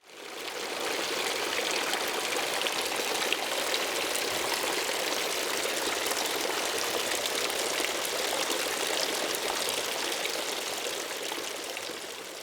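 Water from the Fountain of the Lions pouring and splashing into its basin in a steady stream, fading in at the start and out near the end.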